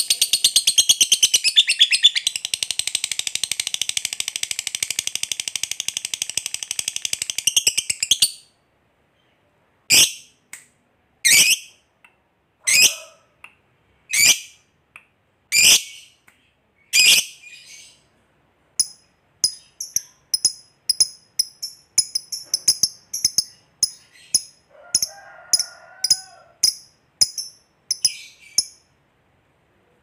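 Fischer's lovebird giving its long 'ngekek' chatter, a very rapid high trill that runs about eight seconds and stops. After a pause it gives sharp single chirps about every second and a half, then a quicker run of short chirps.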